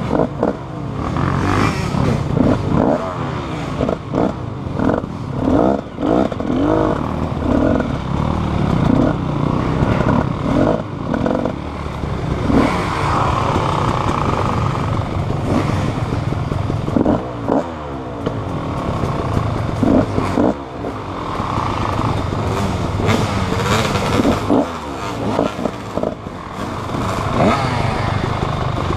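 Motorcycle engine running and revving over rough ground, with clattering and scraping throughout.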